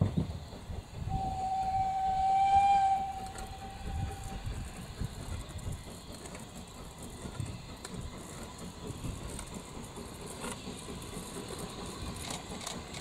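Steam locomotive whistle blown once: one long, steady note lasting about three seconds that swells and then fades, over the locomotive's low rumble and hiss of steam. A few sharp knocks come near the end.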